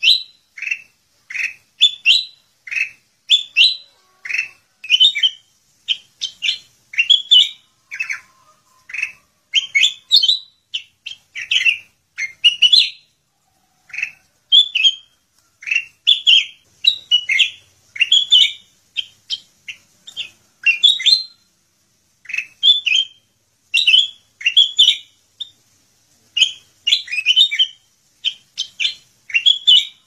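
Kutilang emas bulbul singing hard and without pause: quick, bright chirping phrases follow one another every second or so.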